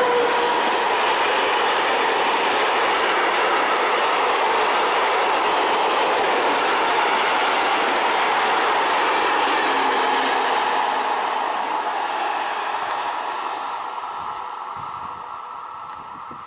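Freight train of loaded open wagons passing close by: steady rolling wheel noise on the rails with a high ringing tone over it. It fades away from about eleven seconds in as the last wagons pass and the train moves off.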